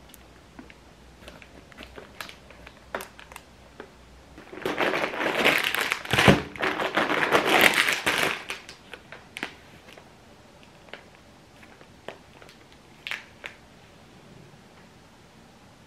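Plastic instant-ramen wrappers crinkling and rustling loudly for about four seconds as the packets are handled, with scattered light taps and clicks before and after.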